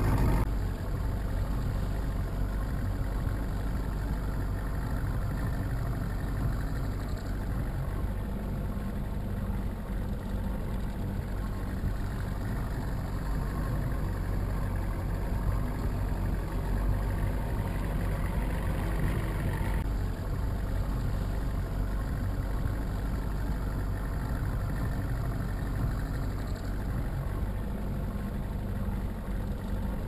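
Small fishing boat's engine running steadily at slow trolling speed, an even low hum.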